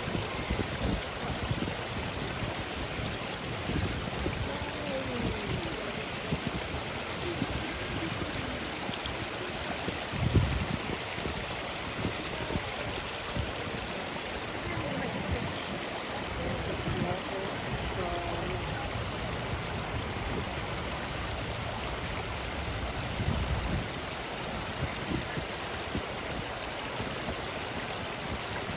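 Steady rushing of running water, with a low rumble now and then, strongest about ten seconds in.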